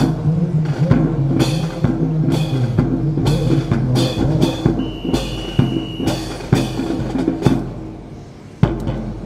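Music with a driving drum beat and sharp percussive hits, with a single held high note briefly about five seconds in; it drops away shortly before the end, then comes back in with a loud hit.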